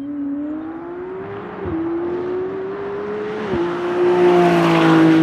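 McLaren Artura GT4 test car's twin-turbocharged 3.0-litre V6 accelerating hard. Its pitch climbs and drops sharply at two upshifts, then it passes close by, loudest about four to five seconds in.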